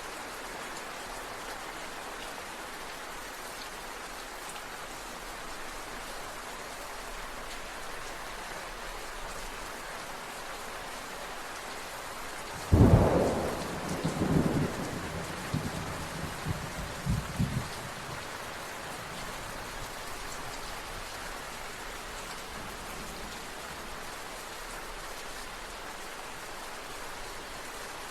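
Steady rain falling. About halfway through, a thunderclap breaks in suddenly and rumbles in several swells for about five seconds before fading back into the rain.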